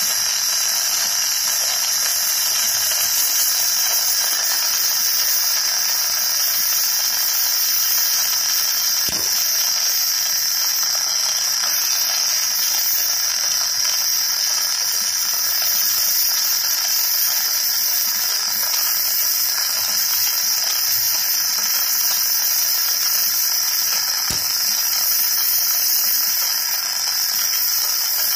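Electric welding arc burning in one continuous run, a steady even hiss.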